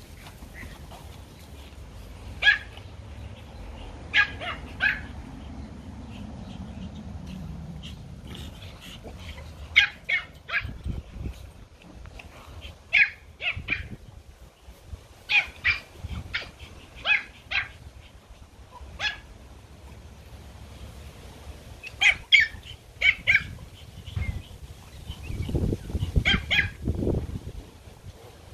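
Pomeranians yapping in short, high-pitched barks, in quick clusters of two or three every few seconds.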